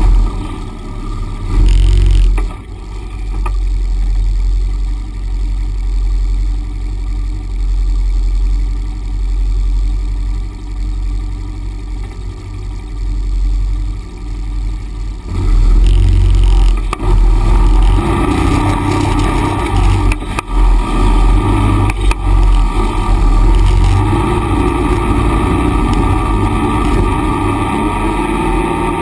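Engines of a Honda Pioneer 500 side-by-side and a Honda Foreman 500 ATV running at low trail speed over rough ground, with a heavy low rumble and knocks from the bumpy ride. The engine note gets louder from about halfway through and rises and falls with the throttle near the end.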